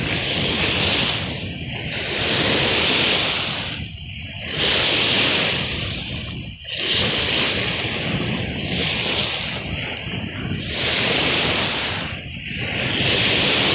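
Choppy lake waves splashing and washing in, in surges every two to three seconds, with wind on the water.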